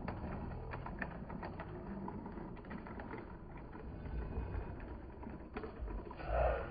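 Outdoor background ambience: a steady low rumble with scattered light clicks and knocks, and one brief louder sound near the end.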